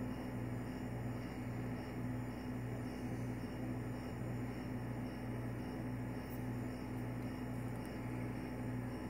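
Steady low machine hum that pulses about twice a second, as of an appliance or motor running.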